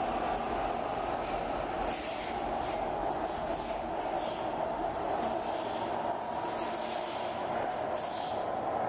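CPTM Série 8000 (CAF-built) electric multiple unit pulling out and running past: a continuous rumble of wheels on rail, with repeated short high-pitched bursts from the wheels from about a second and a half in. The bursts stop as the last car goes by near the end.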